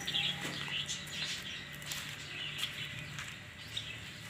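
Birds chirping repeatedly in short calls, over a steady low hum.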